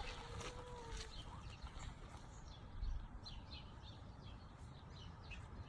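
Small birds chirping: many short, quick, high chirps, thickest from about two seconds in, over a low rumble with a single thump about three seconds in. A faint steady tone lasts about a second at the start.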